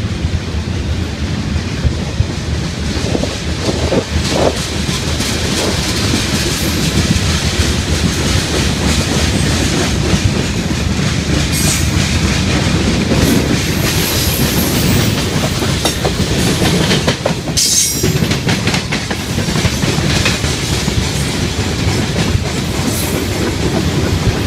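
Freight train of covered hopper cars and tank cars rolling past with a loud, steady rumble. Its wheels clack continuously over the rail joints.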